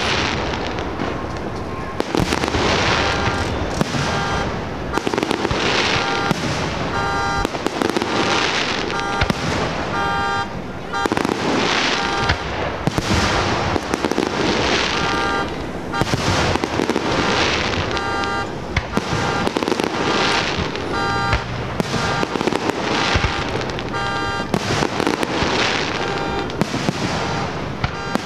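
Fireworks bursting and crackling in quick succession, a fresh crackling burst about every second and a half. From a few seconds in, a car alarm beeps rapidly in steady pulses beneath them.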